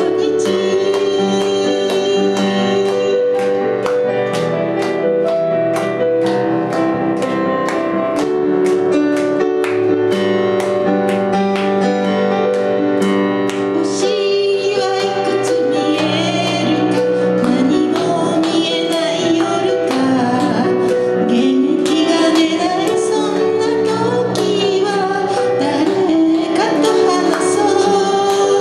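Live J-pop ballad on digital piano with a regular ticking beat; in the first half the accompaniment carries it, and a woman's singing voice comes in about halfway.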